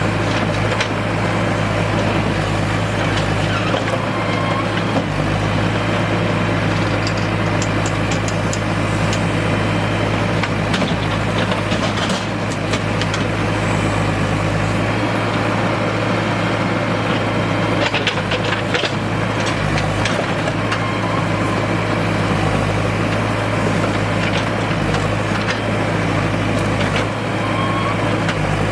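Heavy-equipment diesel engine running steadily, with scattered sharp knocks and clatter, a cluster about eight seconds in and more around twelve and eighteen seconds in.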